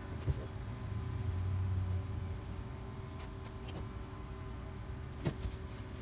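A few short clicks and taps of a bolt and metal parts being handled by feel inside a refrigerator's access compartment, the sharpest about a third of a second in and another near the end. Underneath is a steady low hum, with a low rumble swelling about a second in and fading by two seconds.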